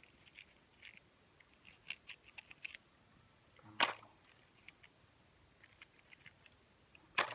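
Soft scattered clicks and rustles of a hand handling small toy cars, with two louder short crackling rustles of grass, about four seconds in and near the end, as the hand reaches into the grass to pick up the next toy.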